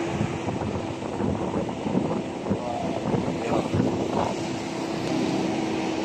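Wind buffeting the microphone over the steady hum of a vehicle engine running.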